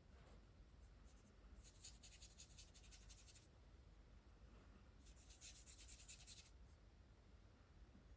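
Faint scratching of a water-based marker nib stroked quickly back and forth across hot-press watercolour paper, in two short spells of rapid strokes a few seconds apart.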